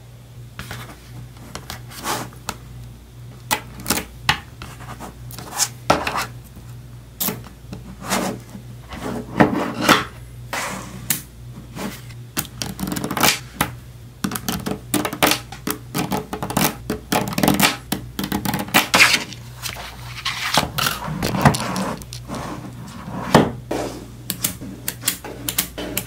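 Small neodymium magnet balls clicking and clattering as they are pressed and snapped together by hand into sheets and a block. The clicks come sharp and irregular, often in quick clusters, over a low steady hum.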